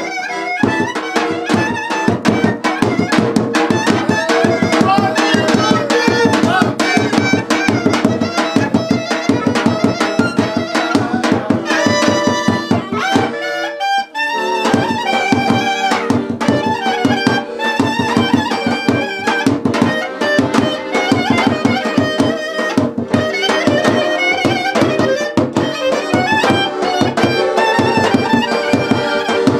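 Instrumental Balkan folk-style dance music: a melody over a fast, driving drum beat, with a short break about halfway through before the band comes back in.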